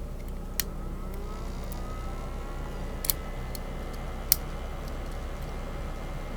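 Three short, sharp metallic clicks of a lock pick and tension wrench working in a Kryptonite disc padlock's keyway, spread over a few seconds, over a steady low background hum.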